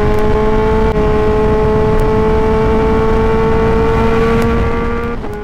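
Kawasaki Z H2's supercharged inline-four pulling steadily in fourth gear under acceleration, its note rising slowly, over heavy wind rush. The engine note drops away near the end.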